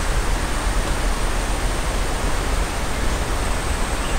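A steady, even rushing hiss with a fluctuating low rumble underneath, unchanging throughout.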